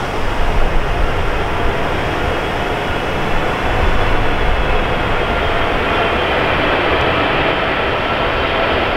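Jet engines of a Boeing 777 airliner on final approach: a steady rush with a faint whine, getting a little louder about three and a half seconds in as the aircraft comes closer. Gusty wind rumbles on the microphone underneath.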